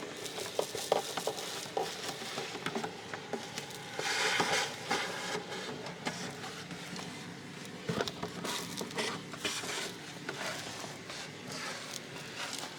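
Vacuum cleaner sucking dust, debris and ladybugs out of an excavator's electrical control box: a faint steady motor hum under many clicks and short rattles as debris goes up the nozzle, with louder rattling bursts about four seconds in and near eight seconds.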